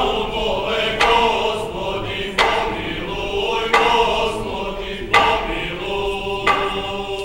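A group of voices singing a Serbian folk song in chorus, with long held notes. A sharp strike comes roughly every second and a half.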